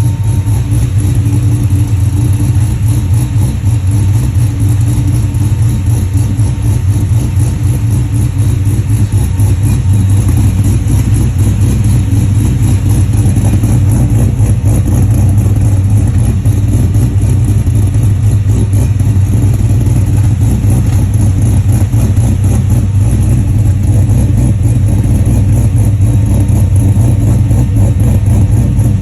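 LS3 6.2-litre V8 in a 1967 Chevelle idling roughly with an uneven, chugging "rup, rup, rup" rhythm. This is a rough idle.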